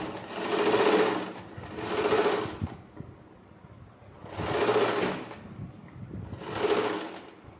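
Sewing machine stitching in four short runs of about a second each, stopping and starting between them, with a longer pause near the middle.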